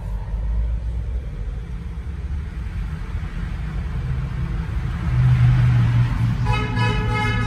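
Low steady drone of a Jeep's engine and tyres heard from inside the cab, then about six and a half seconds in a vehicle horn starts and is held on a steady tone.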